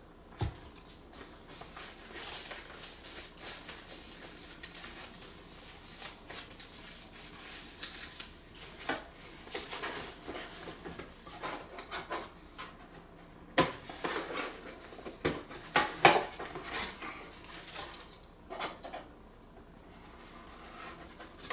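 Packaging and accessories of a camera kit being handled: irregular rustling with scattered clicks and knocks, the sharpest of them clustered about 14 to 16 seconds in.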